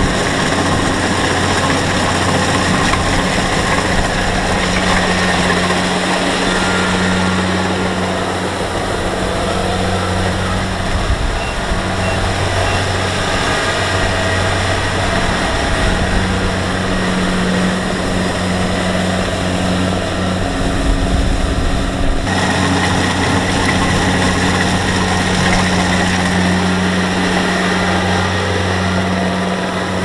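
Kubota DC-70 Plus combine harvester running steadily as it cuts and threshes rice: a steady diesel engine hum under a dense mechanical whirr. The higher part of the sound shifts abruptly about two-thirds of the way through.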